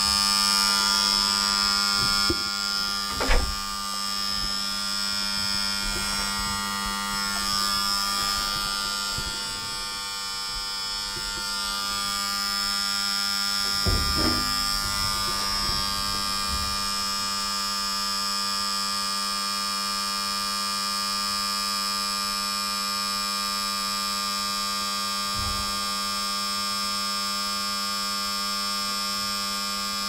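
Machine-room equipment of a 1942 Siemens elevator: a steady electrical hum with a high whine over it, and a couple of sharp clicks about three and fourteen seconds in.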